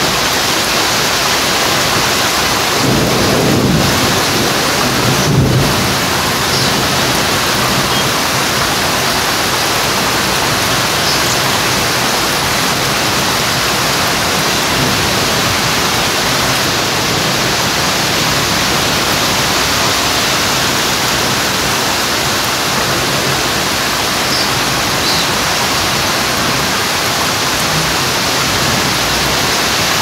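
Heavy rain falling steadily, with a low rumble of thunder swelling about three to five seconds in and peaking once.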